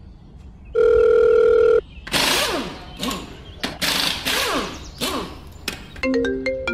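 A steady electronic beep lasting about a second, then a string of about six short hissing bursts with falling sweeps. Near the end a quick run of chiming notes starts, like a ringtone.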